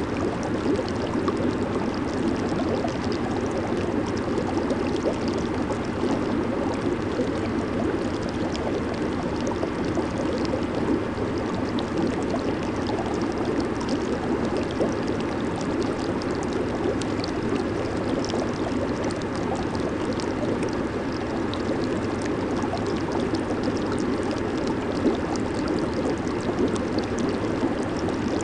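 Jacuzzi hot tub with its jets running: steady churning and bubbling of aerated water, with a fine fizz of bursting bubbles throughout.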